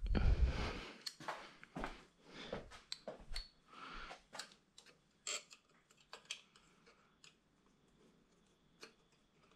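A dull thump at the start, then irregular light clicks and taps of engine parts being handled during assembly, thinning out in the last few seconds.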